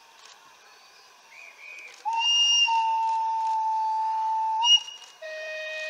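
Hudswell Clarke 0-6-0 saddle-tank steam locomotive's whistle sounding: one long steady blast of about two and a half seconds, then a second, lower-pitched blast near the end.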